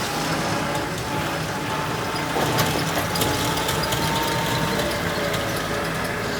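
Heavy construction machinery engine running steadily, with a few sharp metallic clicks about halfway through.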